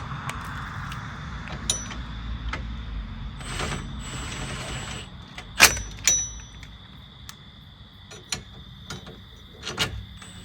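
Scattered metallic clicks and knocks of hand tools and bolts as a new rear wheel hub is fitted and its bolts started, over a steady low hum. The loudest knock comes a little past halfway.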